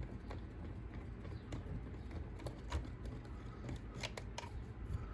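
Small clicks and taps of a hex driver and plastic RC truck parts being handled as a screw is undone, with a cluster of sharper ticks in the second half.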